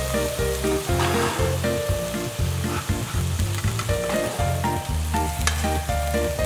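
Background music with a steady bass line and a bouncing melody, over chicken-and-tofu patties sizzling in a frying pan. A metal turner scrapes under a patty about a second in, and there is a sharp tick late on.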